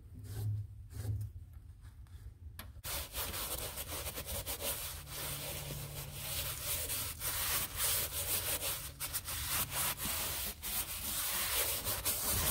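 Cloth rubbing over the dashboard of a 1949 Chevy Fleetline: a dry, scrubbing sound of quick, irregular wiping strokes. It grows much louder about three seconds in.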